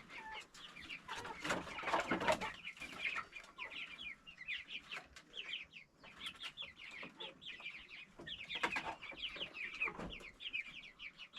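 A flock of chickens clucking, with many short calls overlapping, while they are fed maize.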